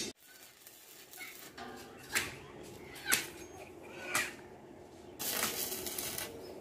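Manual arc (stick) welding on a mild-steel handrail: three short sharp bursts about a second apart, then the arc crackling and hissing for about a second near the end.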